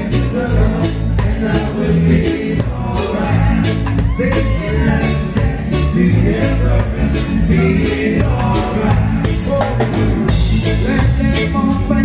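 Live reggae band playing over a steady drum-kit beat and heavy bass, with a male singer's voice gliding over it in the middle stretch.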